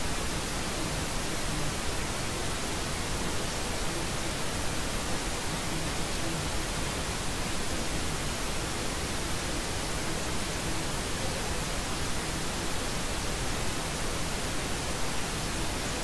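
Steady white noise: an even, unchanging hiss.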